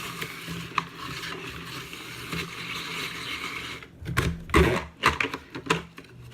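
Spiralizer cutting an apple: a steady rasping, grinding sound as the crank turns, for about four seconds, then several sharp knocks and clatters.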